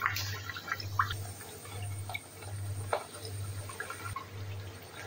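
Layered dough sheet deep-frying in hot oil in a kadhai: a steady sizzle with scattered crackling pops.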